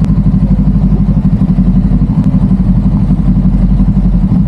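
Motorcycle engine idling close by, a loud, steady, fast throb.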